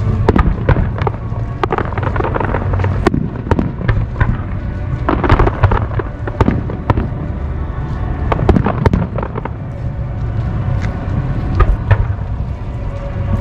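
Aerial fireworks bursting in quick succession: many sharp bangs and crackles over a continuous low rumble, with music playing underneath.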